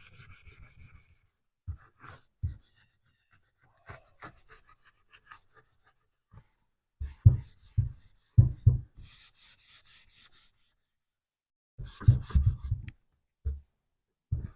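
0000 steel wool scrubbing smoke-tarred window glass wet with foamy glass cleaner, in quick back-and-forth strokes that come in short spells, loudest in two bunches in the middle and near the end.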